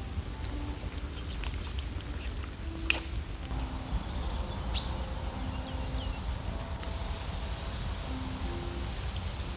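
Soft background music of slow held notes over outdoor ambience with a steady low rumble, a few bird chirps and a single sharp click about three seconds in.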